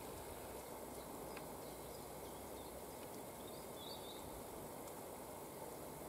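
Quiet forest ambience: a steady faint hiss of background noise, with one brief, faint, high bird chirp a little past halfway.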